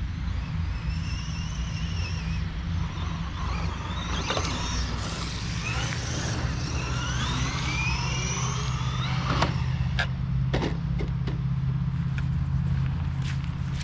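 Redcat Camo TT Pro RC trophy truck's electric motor, running on a 2S LiPo, whining up and down in pitch as it is driven on wet pavement. A few sharp knocks come about ten seconds in.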